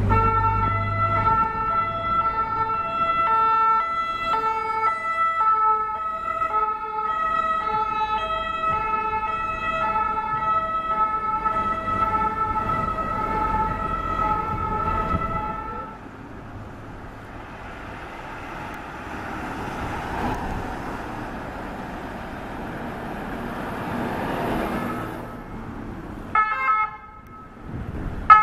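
Private emergency ambulance siren sounding in alternating tones for roughly the first half, then fading out to traffic noise. A second ambulance siren starts up shortly before the end.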